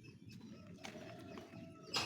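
Chickens calling in a poultry house, one drawn-out call held for about a second in the middle, with a sudden short clatter at the very end.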